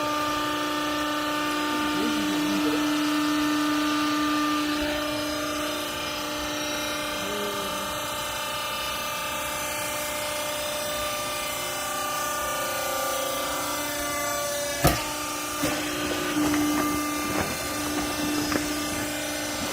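Vertical rag baler machine running with a steady mechanical hum. A sharp knock comes about fifteen seconds in, followed by a few lighter knocks.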